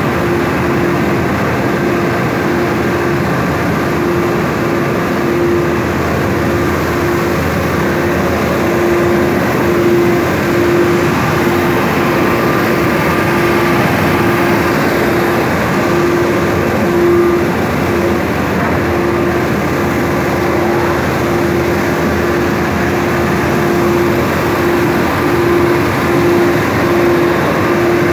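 Wheat flour mill machinery, roller mills and their motors, running together as a loud, even drone with a steady hum.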